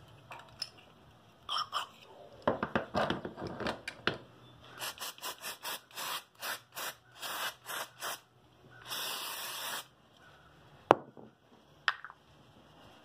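A run of short hissing spray bursts, about two a second, then one longer hiss, as carburetor parts are blown and sprayed clean, after scraping and rubbing of the parts being handled. Two sharp clicks near the end.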